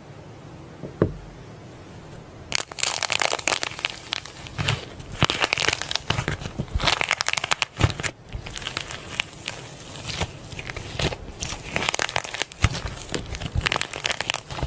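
Crinkling and rustling: a dense, irregular run of small crackles that starts about two and a half seconds in, after a low hiss and a single tick.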